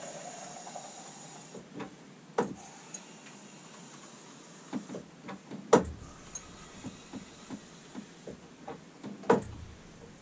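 A pint of beer being pulled through a bar pump into a glass: three solid knocks from the pump handle, about three and a half seconds apart, with smaller clicks and the pour in between.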